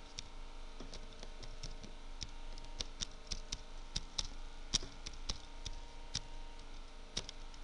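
Computer keyboard typing: uneven key clicks, a few a second, as a short phrase is typed.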